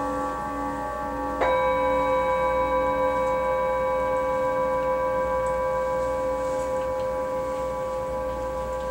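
Paiste gongs ringing in a wash of steady, overlapping tones, with a lower tone pulsing in a slow beat. About a second and a half in, a soft new strike adds a fresh set of clear ringing tones, which then slowly fade.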